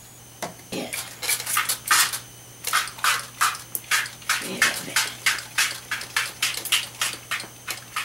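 Hand-held plastic trigger spray bottle squirted over and over, short hissing sprays about three a second, starting about half a second in.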